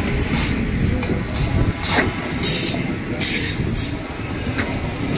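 NS double-deck electric passenger train (VIRM) rolling along the platform, a steady low rumble of wheels on rails. Several short high hissing bursts come through in the middle.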